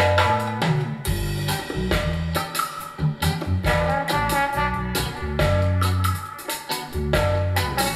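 Reggae music with a bass line, drum kit and guitar, played back through a pair of Sharp CP-C411H bass-reflex bookshelf speakers and recorded in the room.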